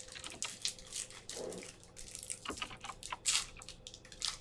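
Crinkling and tearing of a trading-card booster pack's plastic wrapper being opened: a quick, irregular run of small crackles.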